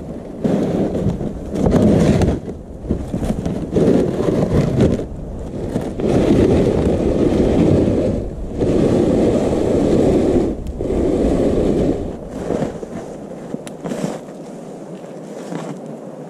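Loaded plastic sled scraping over snow as it is hauled in pulls of a second or two. The sled's hull hisses and crunches across the snow. Near the end it goes quieter, with a few sharp knocks.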